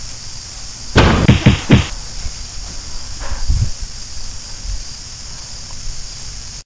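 A quick run of four or five loud thumps about a second in, and a softer one around three and a half seconds, over a steady hiss.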